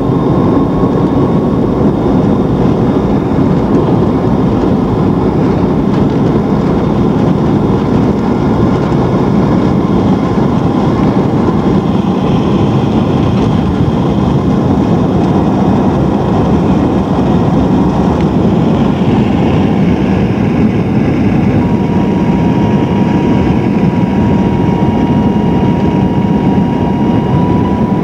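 Jet engine noise heard inside the cabin of a McDonnell Douglas DC-9-30 during its takeoff roll and liftoff: the rear-mounted Pratt & Whitney JT8D engines at takeoff power, a loud, steady rush with the rumble of the wheels on the runway. A thin whine sits over it, clearest in the second half.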